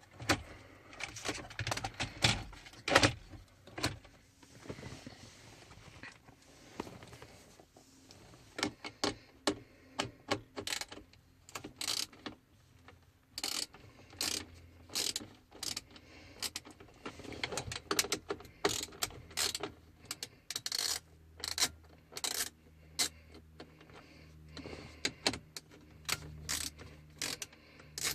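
A socket ratchet and hand tools working out 7mm screws on dashboard trim: scattered, irregular clicks, knocks and small clatters of metal and plastic.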